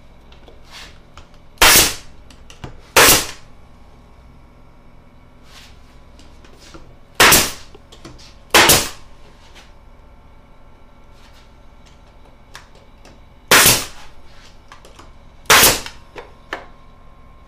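Pneumatic nail gun firing six times, in three pairs a few seconds apart, driving nails into the wood segments of a wooden wheel center. Faint knocks of the wood being handled fall between the shots.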